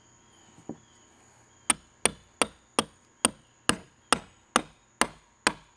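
A hammer driving a 1/2-inch carriage bolt down through a drilled hole in a wooden tabletop, seating the bolt's square neck into the wood. It lands about ten sharp, evenly paced blows, a bit over two a second, starting nearly two seconds in.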